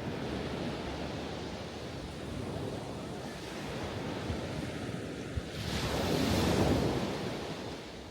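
Ocean surf: a steady wash of waves, with one wave breaking louder about six seconds in.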